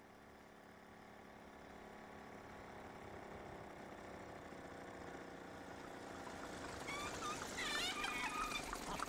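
A VéloSoleX moped's small two-stroke engine running steadily, growing gradually louder as it approaches. Near the end comes a brief squeaky, wavering sound as the moped pulls up.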